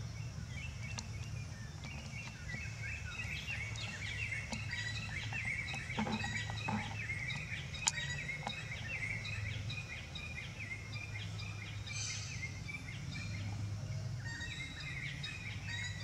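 Small birds chirping and chattering in a dense, continuous run of short notes, over a steady low hum, with a couple of sharp clicks midway.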